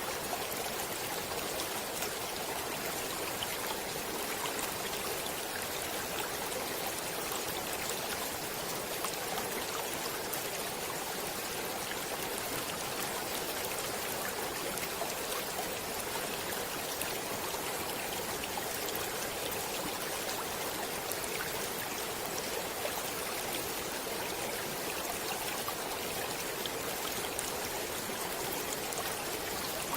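A stream of water flowing steadily, an even rush with many small splashes and drips in it.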